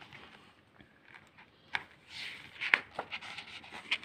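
A hand turning a page of a picture book: soft paper rustling with a few sharp flicks and taps as the page is lifted and laid over.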